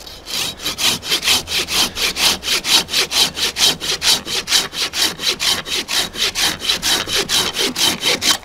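Silky Sugoi 420 curved pull saw with extra-large teeth cutting a log in fast, even rasping strokes, about five a second, stopping abruptly near the end.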